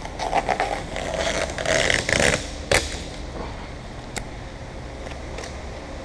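Handling noises: scraping and a run of clicks, ending in a sharp knock about two and a half seconds in. After that only a steady low hum with a few scattered ticks.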